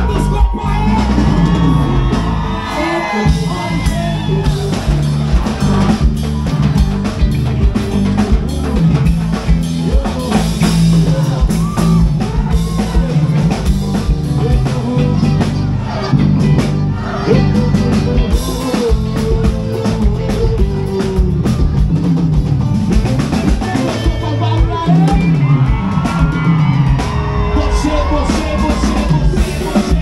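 Live sertanejo band playing loudly, with a drum kit and guitars under a sung vocal line that comes in near the start and again late on.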